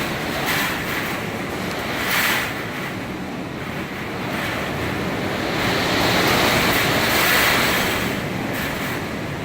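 Hurricane winds blowing in gusts, a continuous rushing noise that swells about two seconds in and again from about six to eight seconds.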